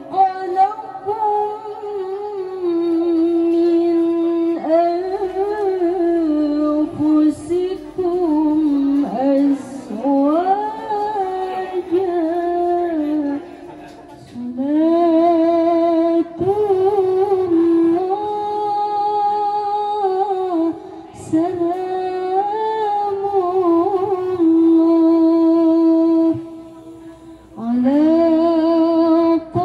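A young woman's voice reciting the Qur'an in the melodic tilawah style. She holds long, ornamented notes that bend up and down, and breaks off for breath about fourteen seconds in and again near the end.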